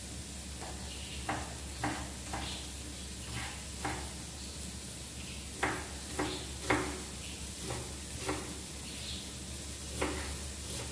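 A spoon stirring food in a cooking pot on the stove, knocking and scraping against the pot a dozen or so times at an irregular pace, over a faint sizzle.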